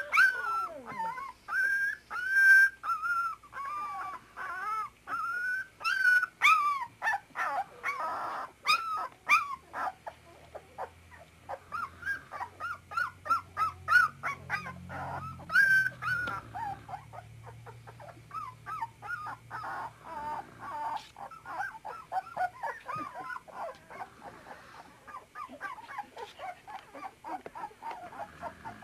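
Collie puppies about three weeks old whimpering and yelping: many short, high-pitched cries that overlap, longer and wavering in the first half, then quicker and denser from about halfway on.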